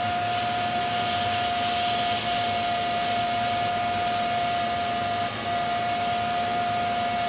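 Hot air gun for plastic welding running steadily, a constant whine at one pitch over the rush of blown air, heating a plastic welding rod against a cracked plastic bumper.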